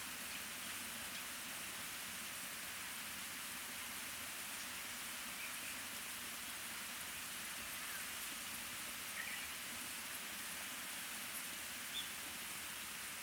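Small stream flowing steadily, an even hiss of running water, with a few faint short high chirps over it.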